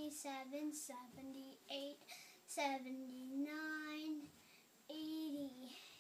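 A young boy counting aloud in a sing-song chant, drawing out each number.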